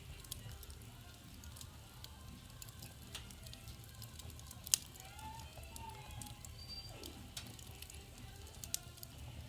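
Wood fire crackling in a fireplace: scattered small pops over a low rumble, with one sharp crack about halfway through and another near the end.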